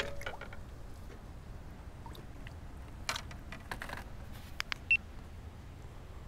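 Close handling noise from a fishing rod, reel and the body-worn camera: scattered clicks and rubbing, with the sharpest click just before five seconds in.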